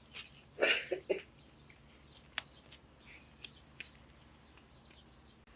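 A chicken clucking, a quick run of three or so short calls about half a second in, followed by a few faint scattered clicks.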